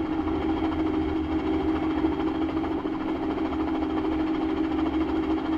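Robinson R44 Raven I helicopter in flight, heard from inside the doors-off cockpit: the steady drone of its carbureted piston engine and rotors, unbroken and at an even pitch.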